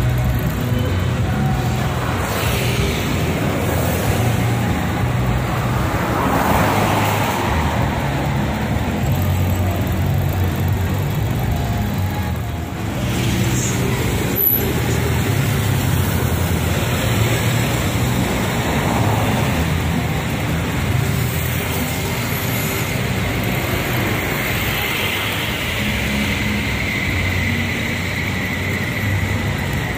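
Steady city road traffic noise, cars passing along the road.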